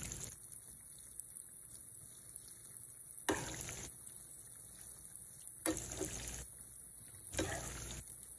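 Chicken pieces deep-frying in a pan of hot oil: a steady sizzle, with three short louder spells a couple of seconds apart.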